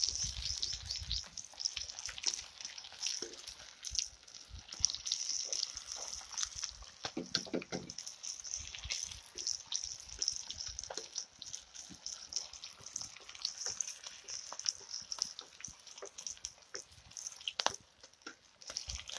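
Fish and prawns deep-frying in hot oil in an iron wok: continuous sizzling with a dense, fine crackle and popping.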